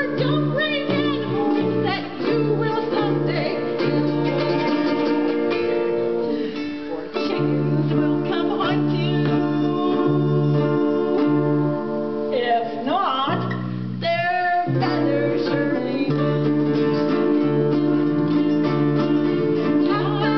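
A small acoustic band playing live: ukulele and other small plucked string instruments strummed in a steady rhythm, with singing over them.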